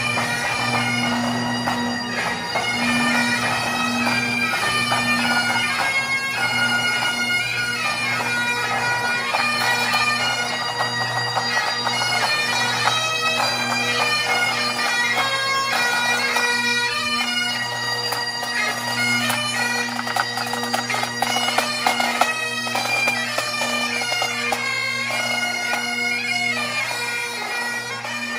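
Highland bagpipes played by several marching pipers: a steady low drone under a quick-changing chanter melody.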